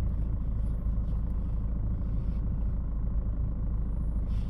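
Ford S-Max 2.2 diesel engine idling steadily, a low even rumble heard from inside the cabin.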